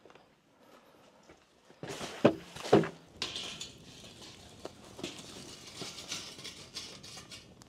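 Kitchen handling sounds: two loud knocks about two seconds in, about half a second apart, then lighter clattering and rustling.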